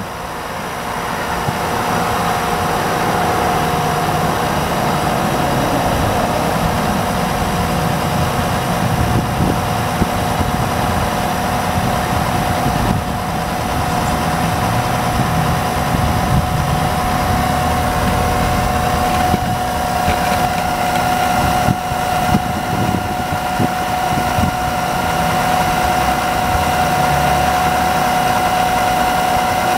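Electric fluid-extraction pump running steadily with a constant whine and a rough low rumble, sucking the last of the old CVT fluid out of the transmission through a hose from the top, near the end of the draining.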